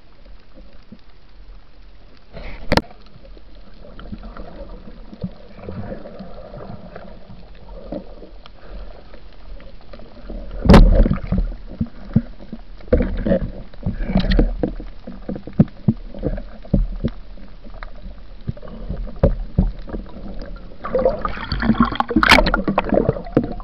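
Underwater camera audio: muffled water noise with irregular knocks and bumps against the camera housing as the camera is handled around a speared fish. The loudest knock comes about eleven seconds in, with a busier run of bumps near the end.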